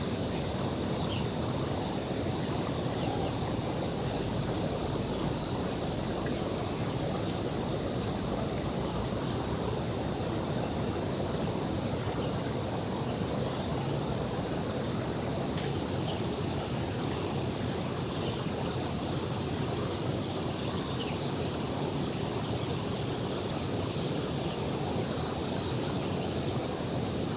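Steady rushing ambient noise with no distinct events. A faint, rapid, high-pitched pulsing comes and goes around the middle.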